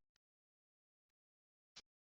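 Near silence, broken by a few brief, faint clicks: one at the start and one near the end.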